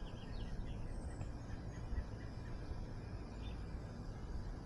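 Outdoor ambience: a low, steady rumble with a few faint bird chirps near the start and once more past the middle.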